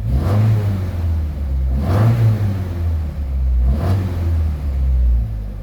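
Triumph Spitfire 1500's four-cylinder engine running and being revved in three short blips about two seconds apart, falling back between them.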